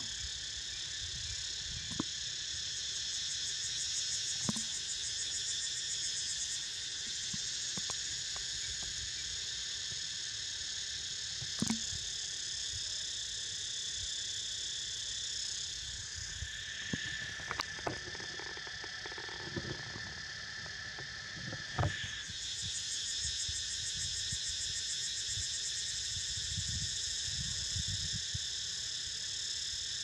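Cicadas droning in a steady, high-pitched chorus, with a fast pulsing shimmer in the highest notes. About halfway through, the upper part of the chorus fades for several seconds, leaving a lower steady whine, then swells back. A few faint clicks sound here and there.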